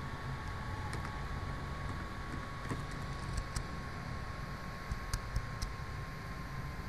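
Steady low hum and hiss with a faint steady high whine, broken by a few soft, scattered computer keyboard and mouse clicks.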